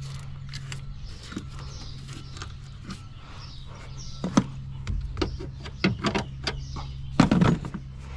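Scattered clicks, taps and knocks of hand work on a truck's wiring harness and its plastic connectors, over a steady low hum. A louder burst of knocking and rattling comes near the end.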